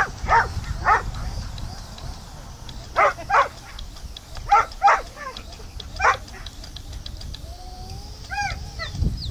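Samoyed barking in groups of two or three, about eight sharp barks in all, then high, bending whines and yips near the end.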